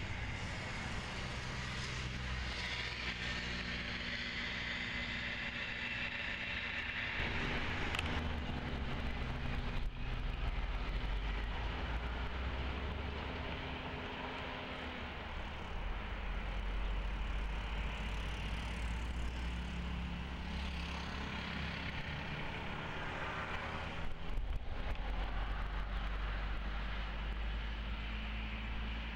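Boeing 737 jet engines (CFM56 turbofans): a departing airliner's engine roar with a high whine, fading as it climbs away. About eight seconds in, another 737 taxiing on the runway takes over, its engines running at low power with a steady low rumble and whine.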